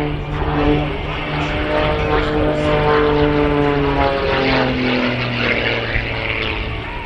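Edge 540 aerobatic plane's six-cylinder Lycoming engine and propeller droning overhead in a display manoeuvre. The engine note drops in pitch about four seconds in.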